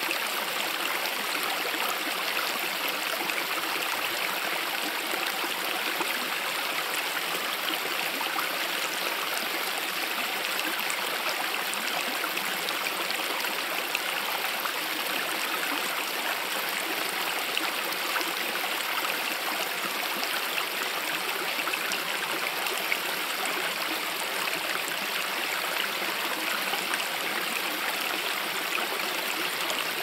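Mountain stream running: a steady, even rush of flowing water that does not let up.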